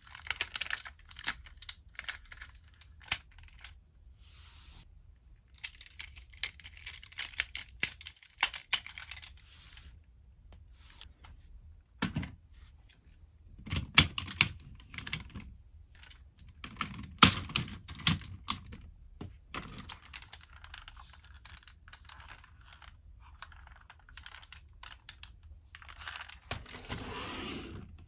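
Hard plastic parts of the DX Siren Builder combining-robot toy being handled and snapped together: irregular runs of clicks, rattles and knocks with short pauses between them. A longer rustle comes near the end.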